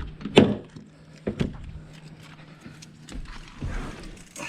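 Footsteps and a few knocks and thumps, about six in all, as someone gets into a pickup truck's cab; the engine is not yet running.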